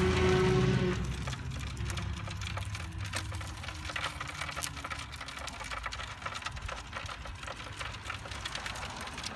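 Electric rotisserie motor on a Weber gas grill humming as it turns the spit. The hum is strong for about the first second, then fainter, with scattered crackles from the roasting chicken's fat.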